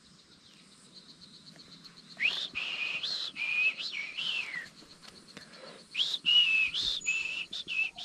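A person whistling to imitate a forest bird's call. There are two phrases, one about two seconds in and one about six seconds in, each a string of short high notes with quick upward slides.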